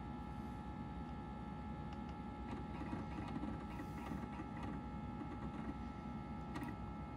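Macintosh SE hard drive chattering with seek clicks while Microsoft Excel loads from disk, a cluster of clicks a few seconds in and another near the end. Under it is the computer's steady fan and drive hum with a faint whine.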